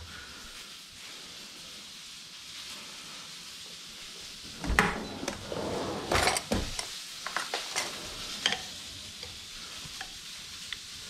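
Birria tacos frying on an oiled plancha, a steady sizzle. About halfway through come the knock of a drawer opening and a rattle of cutlery, then a few lighter clinks of a spoon.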